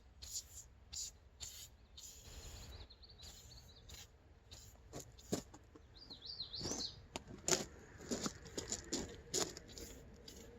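Small birds chirping, with zigzagging calls twice, mixed with scattered short clicks and knocks.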